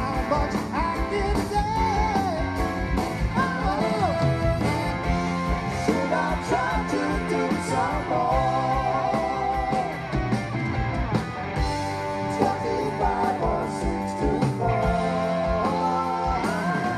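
Live rock band playing a song, with a lead singer over electric guitar and a steady drum beat.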